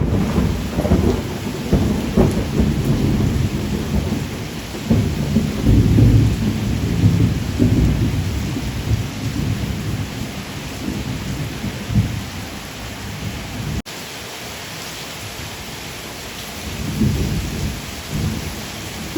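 Steady rain hiss with long, rolling low rumbles of thunder. The rumbling is heavy for the first twelve seconds, drops out after a brief break about fourteen seconds in, and swells again near the end.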